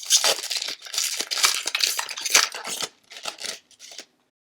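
A trading card pack wrapper being torn open and crinkled by hand, a dense run of crackles and rips that cuts off suddenly about four seconds in.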